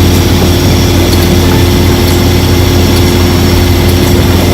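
An engine running steadily at constant speed: a loud, unchanging low drone with a steady hum.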